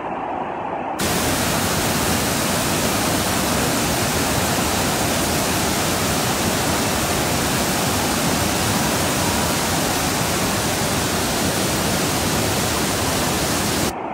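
Rushing roar of the Piracicaba River's muddy rapids in flood, a steady loud noise. About a second in it becomes suddenly louder and brighter, and it cuts off just before the end.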